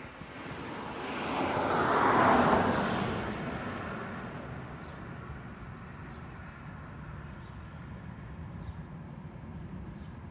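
Outdoor ambience: a rushing noise swells to a peak about two seconds in and slowly fades, over a steady low rumble.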